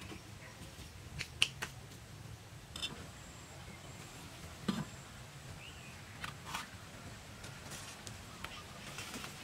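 A few light knocks and clicks from earthenware and bamboo being handled at a clay stove: an earthenware pot lid is lifted and set down, and bamboo tongs poke at the fire. Underneath is a low steady background hum.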